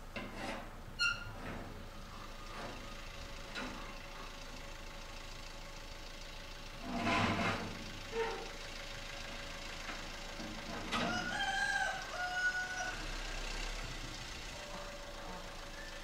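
A rooster crowing once, a drawn-out call about eleven seconds in, among a few shorter calls and a loud noisy burst around seven seconds. A vehicle engine runs faintly in the background as a truck pulls up.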